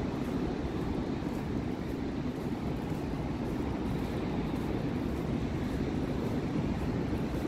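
Steady low rumble of wind and ocean surf, with no distinct events.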